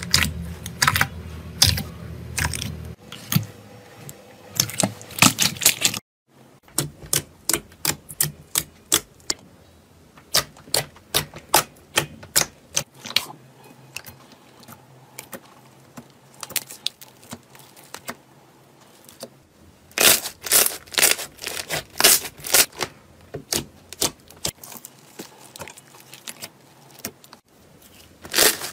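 Hands poking, stretching and squishing slime: a run of sharp, sticky clicks and pops, several a second. The sound breaks off sharply about 6 s in, and the clicking comes back denser and louder from about 20 s.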